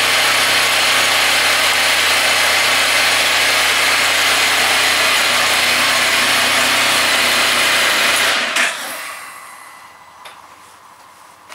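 Motorcycle engine idling steadily with a loud whirring hiss over it, switched off about eight and a half seconds in: a brief burst, then the noise dies away over a second or so. Two faint clicks follow.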